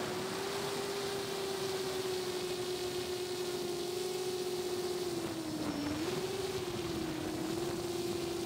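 Heavy 8S FPV drone's brushless motors and propellers whining steadily over a rushing hiss. The pitch dips about five and a half seconds in, then jumps back up and wavers.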